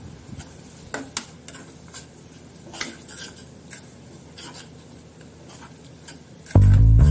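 Metal spoon stirring and scraping grated bottle gourd in a metal kadhai, with scattered short clinks of the spoon against the pan. Loud background music comes in near the end.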